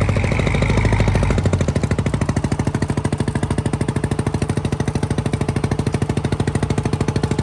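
Fishing boat's diesel engine running with a fast, even chugging beat. A deeper hum underneath drops away about a second and a half in.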